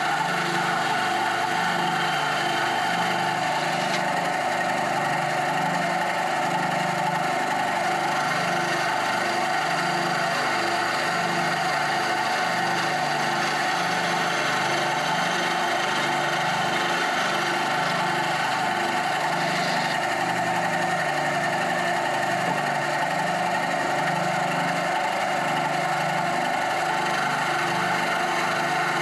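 Bandsaw running steadily, cutting a Christmas tree shape out of a block of African mahogany.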